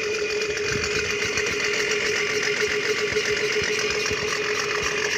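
Solar-powered electric motor driving a water piston pump, running steadily with a constant mid-pitched hum. The pump will not draw water unless it is primed by hand each day.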